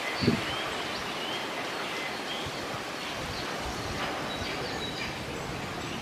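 Outdoor garden ambience: a steady rustling hiss with faint, short bird chirps here and there, and a brief low thump just after the start.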